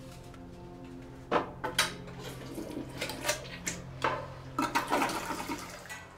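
Kitchen water splashing and running in irregular bursts during cooking, starting about a second in, over a steady low hum.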